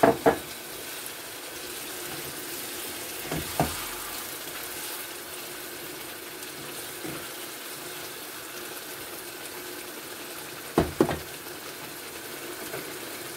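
Curry sauce with chicken sizzling and simmering in a frying pan, stirred with a wooden spoon, the hot water just added to it. A few short knocks stand out: one near the start, one about three and a half seconds in, and two close together about eleven seconds in.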